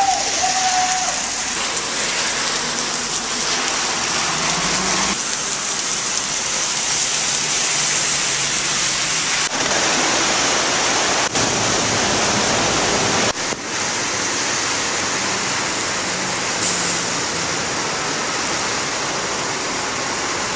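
Heavy rain pouring and floodwater rushing, a steady hiss of water that changes abruptly at several points. Partway through, a car's tyres plough through deep water on a flooded road; near the end, water surges up out of an overflowing storm drain.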